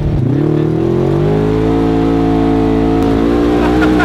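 Polaris RZR side-by-side's engine running under throttle with riders aboard: the engine note dips briefly, climbs over the first second and a half as it accelerates, then holds steady at speed.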